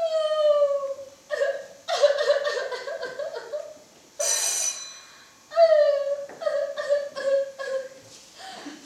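A woman sobbing and wailing theatrically in high, falling wails broken by quick choking pulses, with a short nose blow into a tissue about four seconds in.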